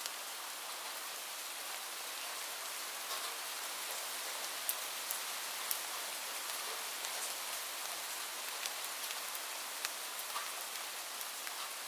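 Light rain falling steadily: an even hiss with scattered individual drops ticking on a surface, a few of them louder.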